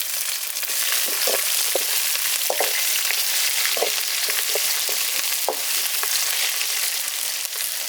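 Onions and green chillies sizzling steadily in hot oil in a kadai, with a handful of short scrapes and knocks of a spatula against the pan as they are stirred.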